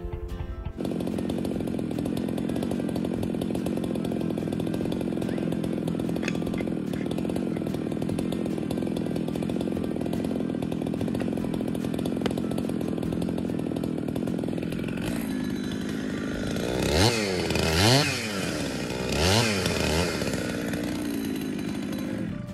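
Gas chainsaw engine running at a steady speed, then revved up and down a few times in quick rising-and-falling swoops near the end.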